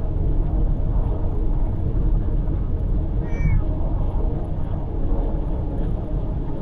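A cat meows once, briefly, a little past the middle, inside a moving car. Under it runs the steady low rumble of the car's road and engine noise.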